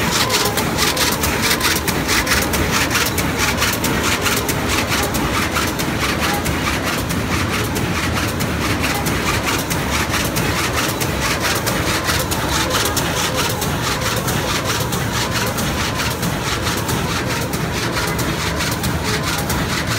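Van de Wiele CRM 72 jacquard carpet weaving loom running at speed: a loud, steady, rapid mechanical clatter that repeats evenly without a break.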